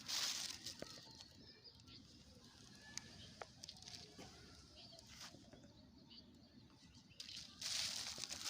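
Rustling and crinkling of litter being gathered by hand, in two bursts, at the start and again from about seven seconds in, with scattered clicks. Faint bird chirps come through in the quieter stretch between.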